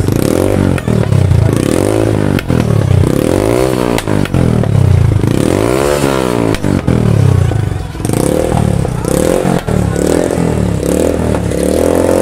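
TVS Apache RTR 160 2V's single-cylinder engine through a loud aftermarket Akrapovic-style exhaust, revved again and again: the engine note rises and falls about every second and a half, with a short drop back near the two-thirds mark.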